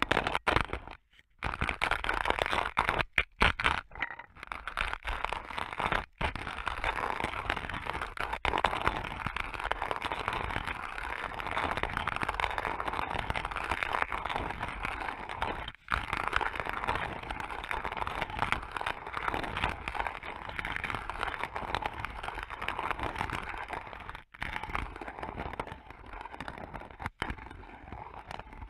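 Antique wooden hand-cranked coffee grinder grinding coffee beans, picked up through a piezo contact microphone: a dense crunching crackle, stop-start over the first few seconds, then turning continuously with a few brief pauses.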